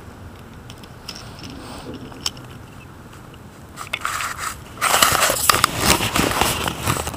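Camera handling noise: after a few quiet seconds with faint clicks, the microphone is grabbed and rubbed against clothing from about five seconds in, giving a loud, rough crackling and scraping.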